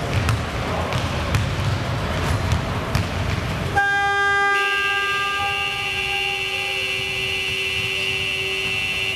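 Gym ambience with a hum of voices and scattered sharp knocks, then about four seconds in the scoreboard's electric horn sounds a long, steady blare of several tones together as the game clock runs down to zero.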